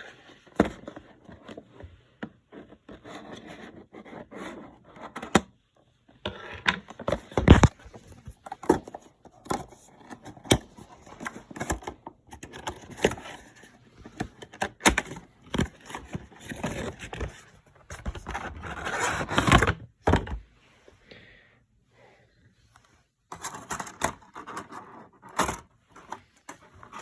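A cardboard box being worked open by hand: irregular scraping and rustling with sharp clicks and knocks, stopping for a few seconds about two-thirds through before the handling resumes.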